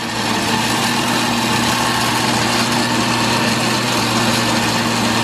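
Electric blender running steadily at full speed, blending guajillo chiles with ground spices into the birria sauce.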